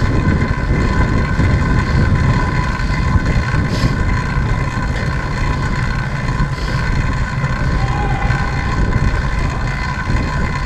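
Wind rushing over the microphone of an action camera on a track bicycle riding at speed, with a steady whine from the bike's wheels and chain rolling on the wooden velodrome boards.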